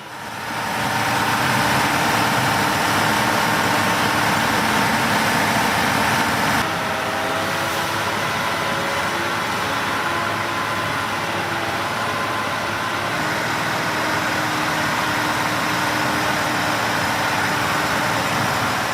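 Truck engine running hard under heavy throttle while the truck is stuck in mud with its wheels spinning in place. The sound is loud and steady, with an abrupt shift in tone about a third of the way in.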